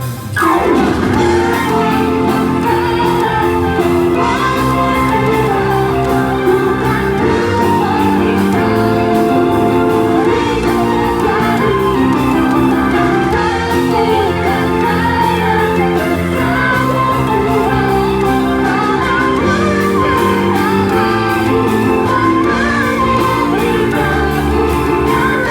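A worship song played by a full band with keyboards and synthesizer, with singing over sustained chords. The music drops out for a moment right at the start, then runs on steadily.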